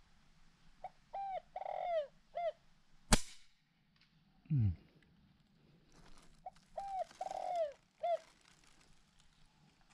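Spotted doves cooing in repeated short phrases, in two bouts. About three seconds in comes a single sharp crack, the loudest sound, and a second and a half after it a short low tone falling in pitch.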